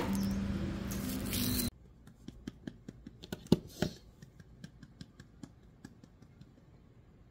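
Shop ambience with a steady low hum that cuts off abruptly, followed by small clicks and rustles of hands working at hair, most of them in the middle and fading toward the end.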